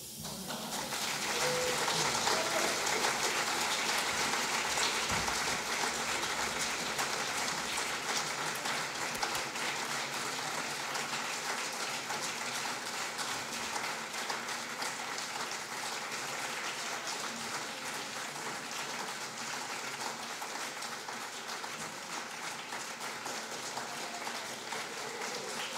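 Concert audience applauding: dense clapping that swells over the first couple of seconds, then slowly tapers off.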